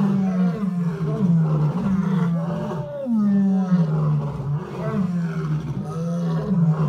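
Lion roaring: a long series of deep, short grunting roars repeated about twice a second.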